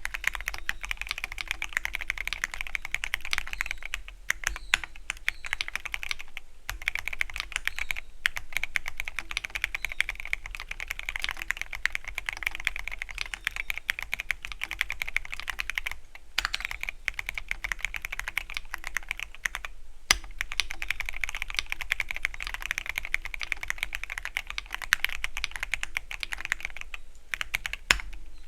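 Continuous fast typing on a Keychron Q13 Pro Max mechanical keyboard with red (linear) switches: a dense run of key clacks, broken by a few short pauses.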